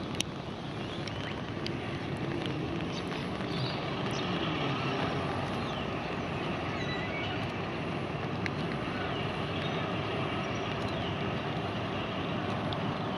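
Distant diesel-hydraulic shunting locomotives running slowly, a low engine drone under steady wind noise on the microphone.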